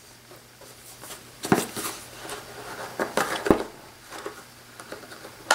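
Light taps and scrapes of a white cardboard tablet box being handled on a tabletop, a few short knocks scattered through, the sharpest about three and a half seconds in.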